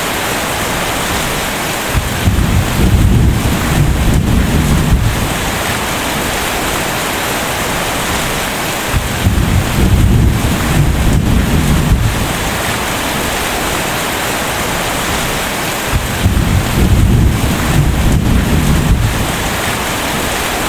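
Steady rain with three rolls of thunder: deep rumbles of about three seconds each, coming roughly seven seconds apart.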